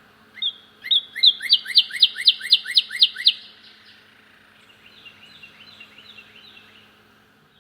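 Northern cardinal singing loudly: one note, then a fast run of about ten downslurred whistles, about four a second, lasting some three seconds. A fainter song of repeated slurred whistles follows after a short pause.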